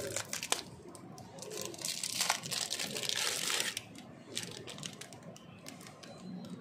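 Clear plastic lollipop wrapper crinkling as a marshmallow lollipop is pulled out of it. There are a few sharp crackles at first, a long dense crinkle in the middle, then scattered crackles.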